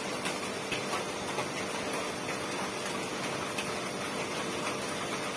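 Light irregular ticks and taps from handling a small medicine bottle and writing with a pen at a desk, over steady room hiss and a faint hum.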